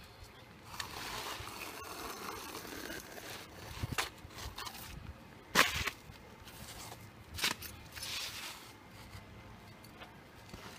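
Asphalt ridge cap shingles being handled and set in place on a roof: rustling, scraping noise and a few sharp knocks, the loudest about five and a half seconds in.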